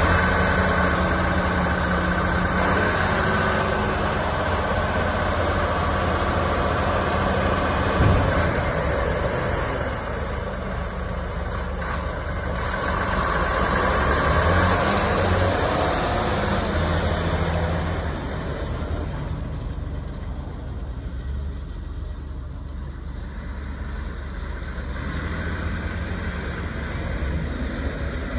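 Volvo A40D articulated dump truck's six-cylinder diesel engine running steadily, with a single sharp knock about eight seconds in. In the second half the truck pulls away and the engine grows fainter as it drives off.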